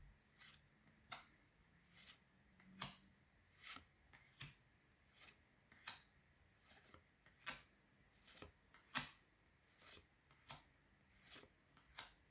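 Pokémon trading cards being slid one by one through the hands from a freshly opened booster pack: faint, short card flicks, a little more than one a second.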